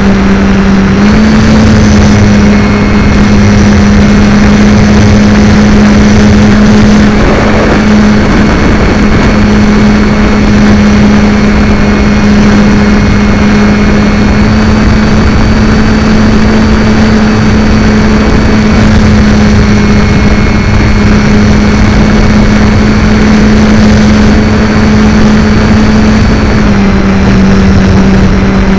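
Multiplex FunCub RC plane's electric motor and propeller heard up close in flight: a loud, steady drone with a whine. Its pitch steps up slightly about a second in and drops back near the end. Heavy wind noise runs over the microphone throughout.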